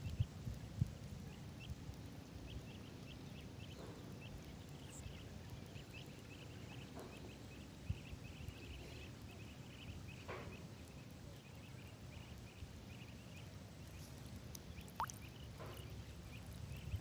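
Faint outdoor ambience: a low rumble under a steady run of short, high-pitched chirps, several a second, with a few soft clicks.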